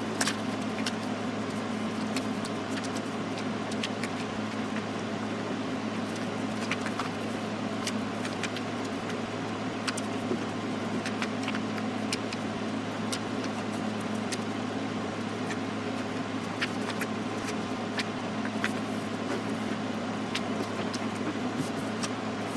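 Paper being folded and creased by hand: small, scattered crinkles and clicks over a steady background hum.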